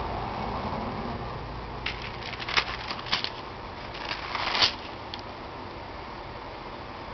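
A stamp album page, with its thin interleaf sheet, being turned by hand: a run of crisp paper rustles and crinkles from about two to five seconds in, loudest twice, over a steady low background noise.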